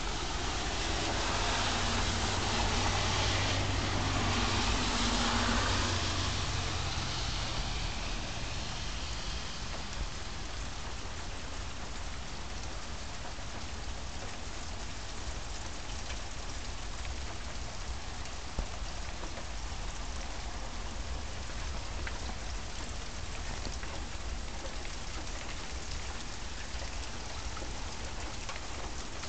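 Steady rain falling, a constant hiss with a few brief ticks. The noise swells louder with a low hum for the first several seconds, then settles.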